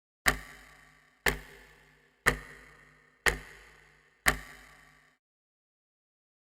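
Synthetic clock-tick sound effect: five sharp ticks exactly a second apart, each with a short ringing tail. It counts off the seconds of The World's stopped time.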